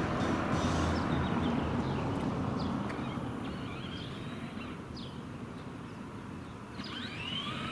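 Low rumbling noise that drops away about three seconds in, with birds chirping throughout.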